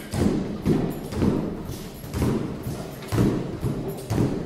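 Roller skis and ski poles striking a treadmill belt in a steady rhythm of thuds, about two a second.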